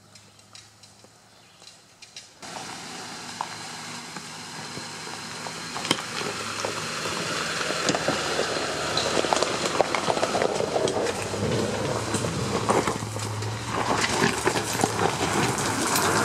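2006 Ford Explorer creeping over a rocky dirt trail, its tyres crunching and crackling on loose stones and gravel over the low hum of the engine. Faint at first, it gets suddenly louder about two seconds in and keeps building.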